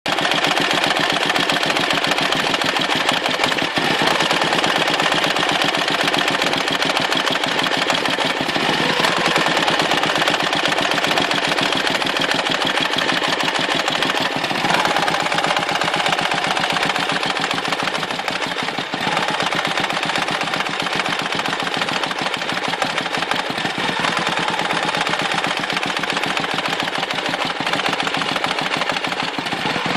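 Dnepr motorcycle's boxer-twin engine running with a rapid, periodic knocking that comes and goes. When the knock is present the engine loses power and spits fuel back out of the carburettor.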